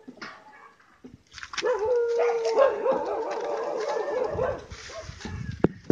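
A dog whining in wavering, pitched cries, starting about a second and a half in and lasting a couple of seconds, followed by low handling noise and a sharp click near the end.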